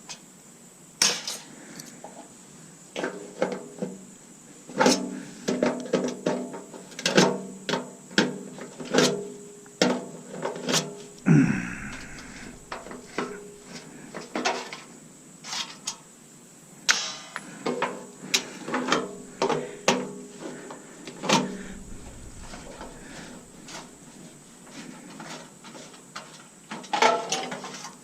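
Irregular metal clanks, taps and knocks from a Bunn-O-Matic coffee maker's stainless steel housing and parts being worked apart with hand tools. Some strikes leave a brief ring, and there is a longer scrape about eleven seconds in.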